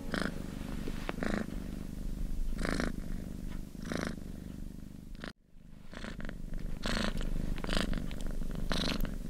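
Domestic cat purring close to the microphone: a steady low rumble with a breathy pulse about once a second. It drops out briefly about five seconds in.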